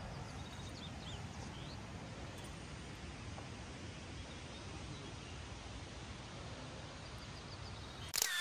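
Outdoor ambience: a steady low rumble and hiss with a few faint bird chirps in the first second or so. Near the end comes a short loud crackle, then the sound cuts off abruptly.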